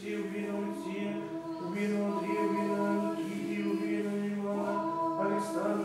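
Choir singing Orthodox church chant a cappella, several voices holding slow, sustained notes.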